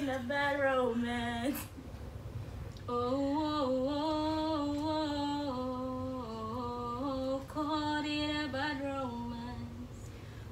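A woman's voice singing a wordless melody in held notes that step up and down: a short phrase at the start, then a longer one from about three seconds in.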